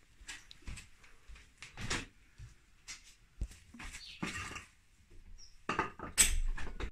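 Knocking on a wooden door, some blows struck with a small metal knocker, with a run of louder knocks near the end; scattered lighter thuds and rustles come before it.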